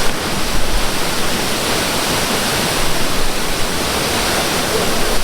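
Waterfall pouring into a rock pool: a loud, steady rush of falling water, with wind gusts rumbling on the microphone.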